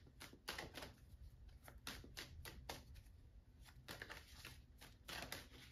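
A tarot deck being shuffled by hand: a quiet, irregular run of soft card slaps and rustles, several a second in clusters.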